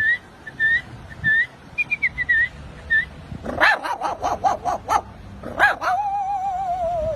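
A man imitating animals with his voice: short whistled, bird-like chirps repeating for the first few seconds, then a quick run of dog yaps about halfway in, one more yap, and a long wavering dog whine near the end.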